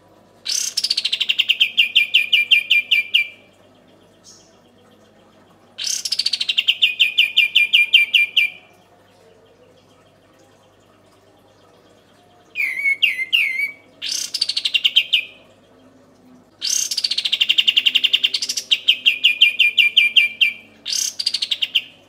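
Kapas tembak songbird singing its rapid-fire 'tembakan' song: phrases of one to three seconds with short pauses between, most sliding down in pitch at the start and then running on as a fast, even roll of repeated notes. One phrase about halfway through is a wavering warble instead.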